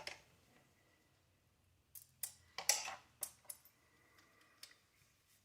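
Small RC car parts and hardware handled on a workbench: a quick cluster of light clicks and rattles about two seconds in, then a few faint ticks.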